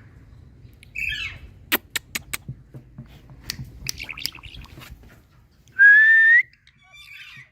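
Indian ringneck parrot making a short squawk, then a run of sharp clicks and brief chirps, its imitation of dripping water drops. About six seconds in it gives one loud, clear whistle lasting about half a second and rising slightly at the end.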